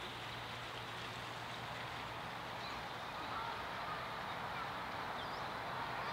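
A steady hiss of falling or running water. Faint waterfowl calls start about halfway through.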